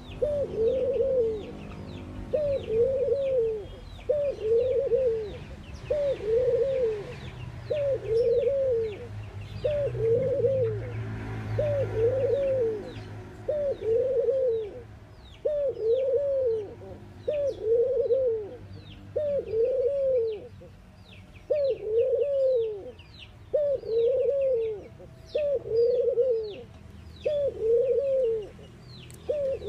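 Collared dove cooing: a steady series of short coos, each rising and falling in pitch, about one every second and a half.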